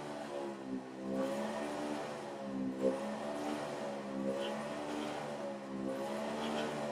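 A motor hums steadily, its pitch rising and falling in a slow, regular cycle about every second and a half.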